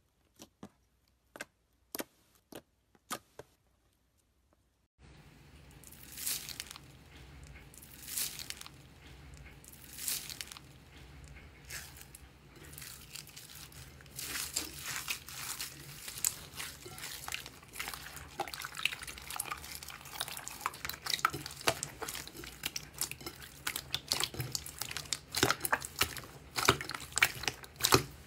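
Hands pressing and kneading slime: a few sharp clicking pops from clear slime at first, then, from about five seconds in, dense crackling and popping from slime mixed with foam beads, in swells about every two seconds that become continuous later on, over a faint low hum.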